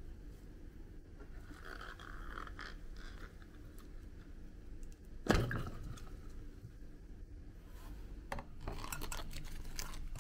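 A glass bowl holding a water balloon full of water beads being handled: soft rubbing early on, one sharp knock on the glass a little past halfway, then a quick run of small clinks and taps near the end.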